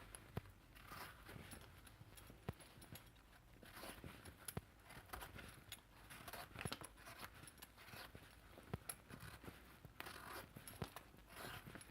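Faint scraping of round gourds (tinda) being peeled, in short, irregular strokes with small clicks as the skin comes away.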